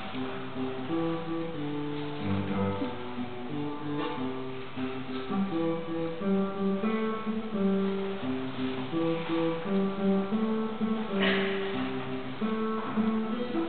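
Solo acoustic guitar played fingerstyle, picking a melody one note at a time over bass notes.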